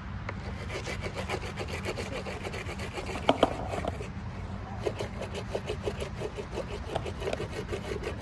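Razor blade trimming skateboard grip tape along the deck's edge: repeated rasping, scraping strokes, quickening to several a second in the second half, with a couple of sharp clicks about three seconds in.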